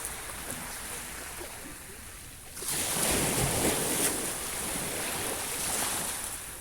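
Sea waves on the shore: a quieter lull, then a wave breaks about two and a half seconds in and its wash runs on for several seconds before easing.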